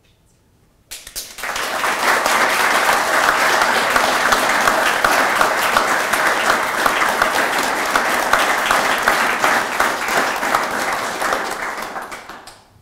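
Audience applauding: the clapping starts about a second in, builds quickly, holds steady and dies away near the end.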